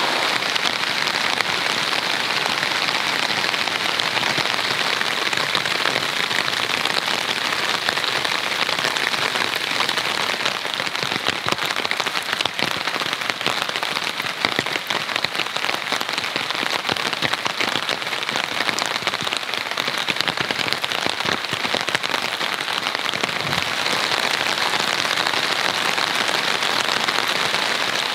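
Heavy rain falling steadily, a dense patter of drops on tent fabric.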